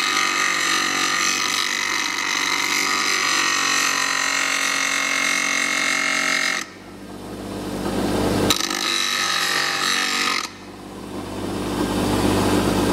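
Bench grinder's abrasive wheel grinding off a corner of a Cummins truck ECM's cast aluminium housing, cutting through the sealed case so it can be opened: a loud, steady grinding screech over the motor's hum. About halfway through the grinding drops away and then builds back up, with a single click; it drops and builds again near the end.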